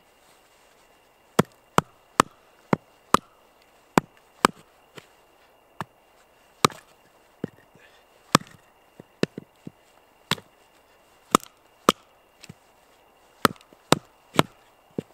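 A wooden baton striking the spine of a fixed-blade Fällkniven A1 knife to split firewood (batoning). There are about two dozen sharp knocks, irregularly spaced and sometimes bunched two or three in quick succession.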